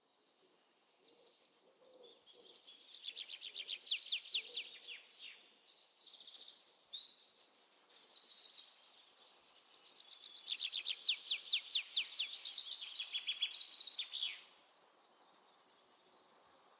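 Several birds calling in overlapping bursts, with fast trills of short, rapidly repeated descending notes. Near the end the calls stop and a steady high insect drone is left.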